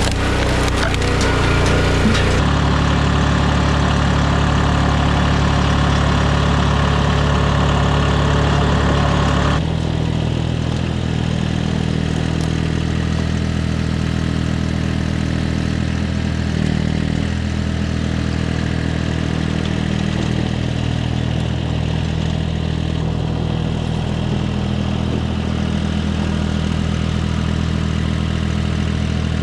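An engine running steadily at a constant speed. The sound changes abruptly about two seconds in, and again about ten seconds in, when it turns lower, duller and slightly quieter.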